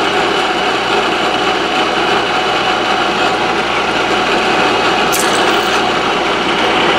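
Milling machine spindle running steadily while a center drill cuts into a hard steel strip. There is a brief high-pitched scrape about five seconds in.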